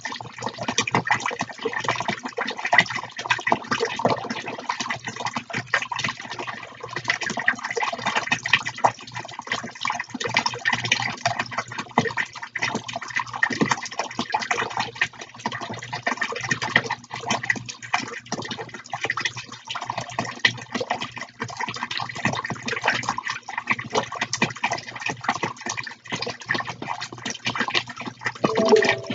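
Two small tabletop fountains running, their water jets splashing continuously back into a plastic tub in a dense, even patter. A faint steady low hum sits beneath.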